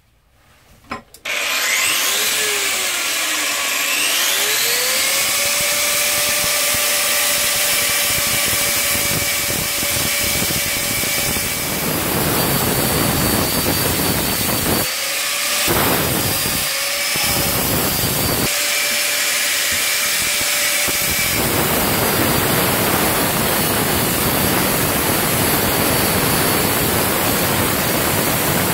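An angle grinder is switched on about a second in, its motor whining up to speed and running free. About a third of the way through it starts grinding rust off a steel bill hook blade with a loud rasping hiss. It lifts off a few times, running free again, then grinds steadily from about two-thirds of the way through.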